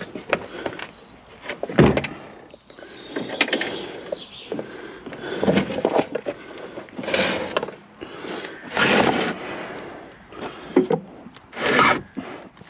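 Heavy tractor battery being slid into its tray: irregular scraping and rubbing with a few knocks as the case is pushed and shifted into place.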